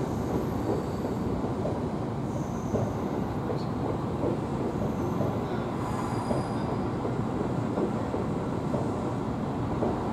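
Seibu 9000 series electric train rolling slowly past, a steady rumble of wheels on rails with faint high-pitched wheel squeals that come and go.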